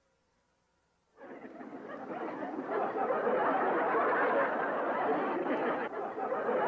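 Sitcom laugh track: audience laughter that starts about a second in, swells quickly and keeps going.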